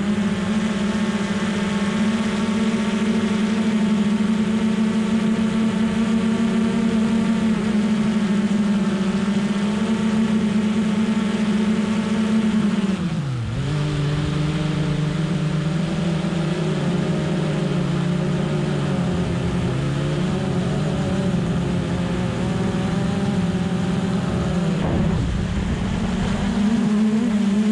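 Hubsan Zino Pro quadcopter's motors and propellers humming steadily in forward flight, heard from a GoPro mounted on top of the drone. About halfway through, the pitch dips sharply and climbs back.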